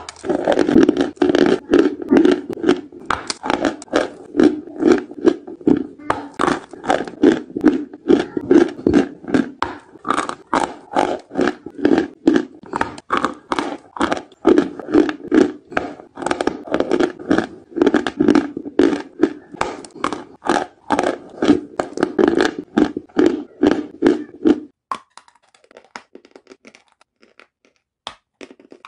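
Close-up chewing of white chalk: a steady, even run of crunches, about two or three a second. About 25 s in it cuts to fainter, sparser crunching.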